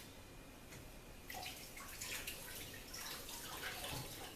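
Water running from a kitchen tap and splashing as hands are washed under it, starting about a second in.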